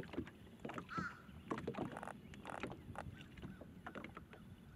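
Water lapping against a small boat's hull, with scattered light knocks and clicks. A single bird call sounds about a second in.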